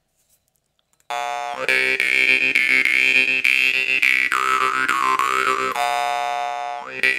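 Masko jaw harp (vargan) played, starting about a second in: a steady buzzing drone, plucked again and again, with a bright, very saturated overtone ringing above it. In the middle the mouth shifts a second overtone up and down in a short melody, and the drone stops briefly near the end.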